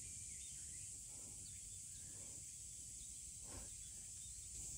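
Faint outdoor ambience: a steady high-pitched insect chorus with a few faint bird chirps over it.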